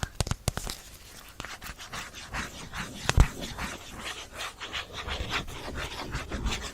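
ASMR tapping and scratching: a quick run of taps at the start, then rhythmic scratching strokes about three a second, with one louder tap about three seconds in.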